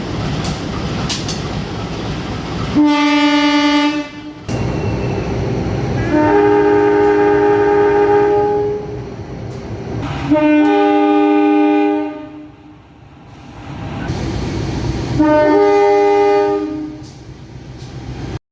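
Diesel locomotive air horns sounding the S35 horn signal: four blasts, a short single note about three seconds in, then three longer chords each lasting a second and a half to two and a half seconds. Between the blasts comes the rumble and clatter of the passing train.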